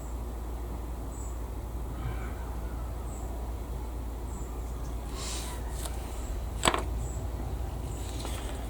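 Quiet handling sounds at a modelling bench over a steady low hum: faint rustling, then a single sharp click about two-thirds of the way in.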